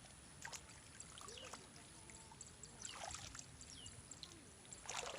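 Faint sloshing and trickling of muddy water, with a few small splashes.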